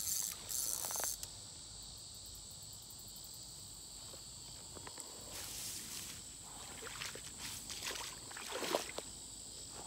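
Insects droning steadily on a high, even pitch, with short scratchy bursts of noise breaking in several times, the loudest near the end.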